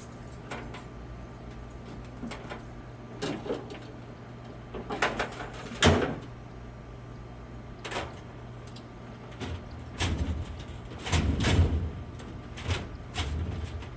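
Heavy tool box being shoved and walked across a van's cargo floor: a series of knocks, bangs and scrapes, the loudest bang about six seconds in and a longer rumbling scrape around ten to twelve seconds in. A steady low hum runs underneath.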